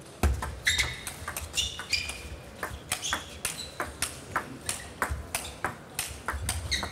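Table tennis rally: the celluloid ball is struck by rubber-faced bats and bounces on the table in a quick, even run of sharp clicks, about three a second. A few short high squeaks come from players' shoes on the court floor.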